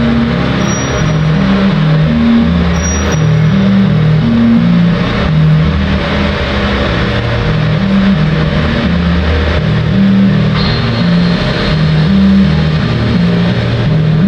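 Live electronic music played loudly over a PA: a repeating sequence of low synthesizer notes stepping up and down over a dense, hissing wash, with a thin high tone entering about ten seconds in.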